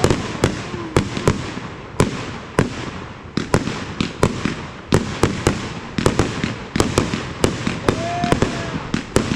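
Fireworks going off in rapid succession: sharp bangs several times a second at uneven spacing over a continuous noisy rumble.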